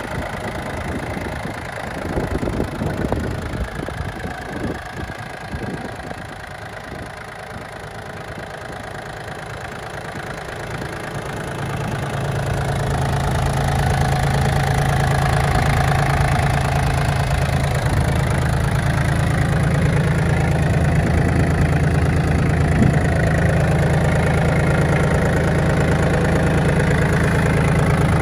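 Yanmar F24D compact tractor's three-cylinder diesel engine idling steadily. The engine is uneven and quieter for the first several seconds, then grows louder and steadier from about twelve seconds in.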